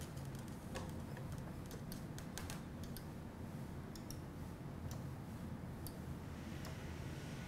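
Faint, irregular clicking from the controls of an endovascular simulator's control panel being worked by hand, over a steady low hum.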